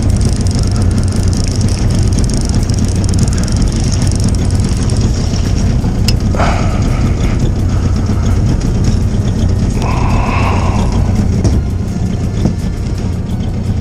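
Small outboard motor running steadily at trolling speed, a constant low hum. Two brief higher-pitched sounds stand out over it, about six and ten seconds in.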